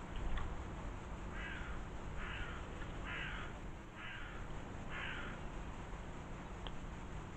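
A bird's harsh call repeated five times in an even series, about one call a second.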